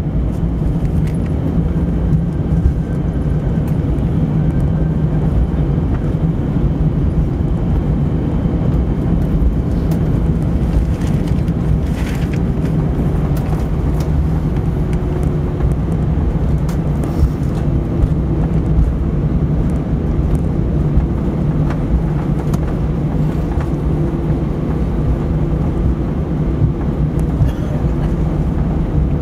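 Cabin noise inside an Airbus A320 rolling along the ground after touchdown: a steady low rumble from the airframe and wheels with the engines' hum, no change in pitch.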